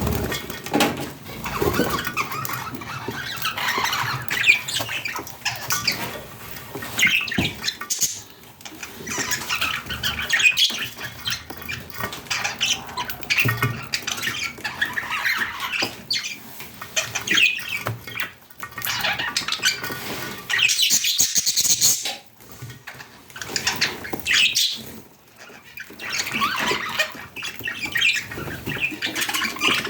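Budgerigars chattering, warbling and squawking continuously, with brief pauses now and then.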